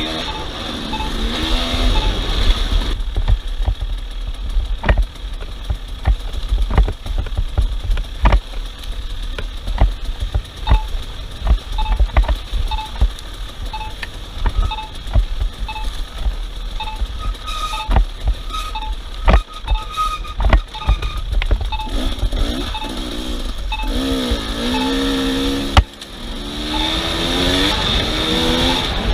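Off-road vehicle engine running over rough ground, revving up and down near the start and again over the last several seconds, with a heavy low rumble and frequent sharp knocks.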